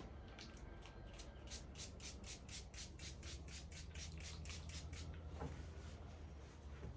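A towel wiping rapidly back and forth across a car windshield, about four strokes a second, stopping about five seconds in: the glass being cleaned with CarPro Eraser.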